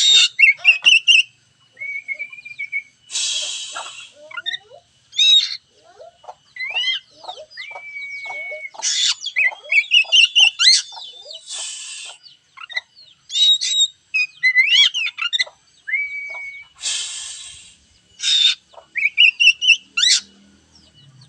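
Oriental magpie-robin (kacer) singing a long, varied song of clear whistled notes, sliding notes and quick trills, broken by several harsh rasping bursts, notably around 3 s, 12 s and 17 s. It is the kind of full song played as a lure to goad a kacer that is reluctant to sing.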